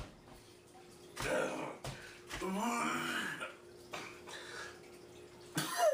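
A man coughing and gagging with fizzing baking soda and vinegar in his mouth. There is a harsh cough about a second in, a drawn-out gagging groan around the middle, and another cough near the end.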